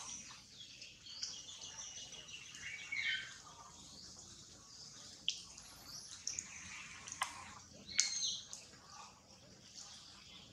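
Short, high-pitched chirps and gliding squeaks come and go, with a few sharp clicks about five, seven and eight seconds in.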